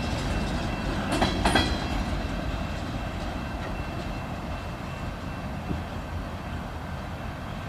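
Union Pacific local freight train rolling past, a steady low rumble of wheels on rail with some clicking over the joints, slowly fading.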